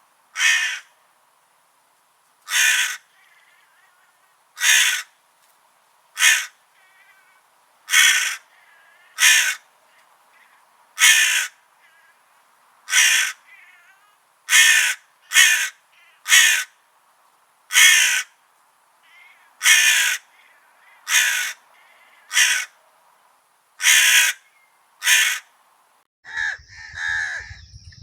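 Crows cawing, one harsh caw every second or two in a long regular series, over a faint steady high-pitched tone. About two seconds before the end the caws give way to a denser, continuous jumble of calls with a low rumble.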